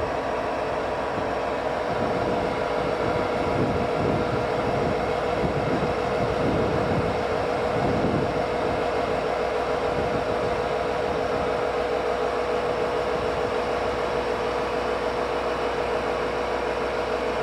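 Inside a moving train: a steady running hum with a few held pitches over a constant rumble, the low rumble growing heavier for a few seconds early in the stretch.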